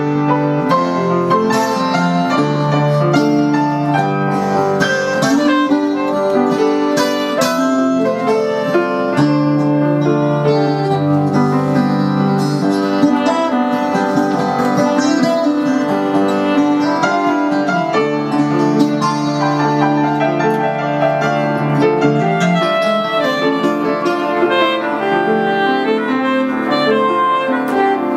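Live instrumental jam: soprano saxophone playing long, held melodic lines over electric guitar and keyboard, with no break.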